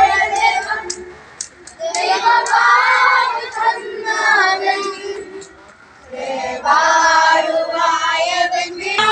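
A group of children singing together in sung phrases, with short breaks in the singing about a second in and again about six seconds in.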